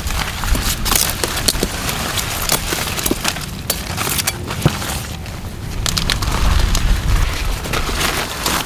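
Broccoli plants' thick leaves and stems rustling, crackling and snapping as they are handled and stripped by hand, in a run of irregular sharp crackles.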